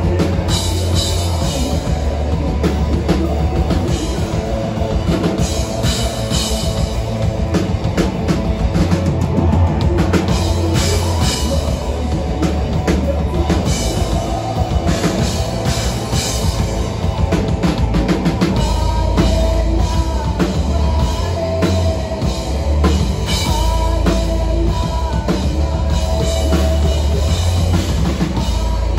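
Live metalcore band playing loud: electric guitars, bass guitar and a drum kit with heavy bass drum and cymbals.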